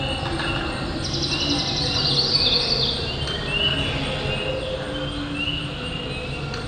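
Forest ambience of birds and insects: short bird chirps repeat throughout, with a high buzzing insect-like trill from about one to three seconds in, over a steady low hum.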